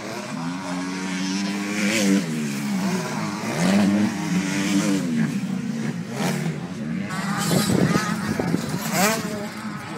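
Motocross motorcycle engines racing on the track, their pitch repeatedly climbing, holding and dropping away as the riders open and close the throttle.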